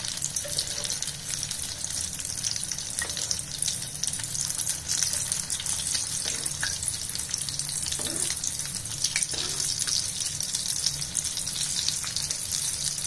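Potato rolls deep-frying in hot refined oil: a steady, dense crackling sizzle with a low hum beneath it.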